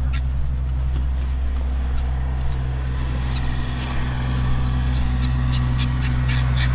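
Steady low hum of an engine or motor running, with a run of short sharp clicks over the second half.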